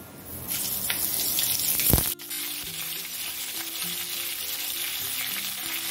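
Water lily stems skewered on toothpicks frying in hot mustard oil in an aluminium kadai, a steady sizzle that starts as they go in. A brief sharp noise about two seconds in.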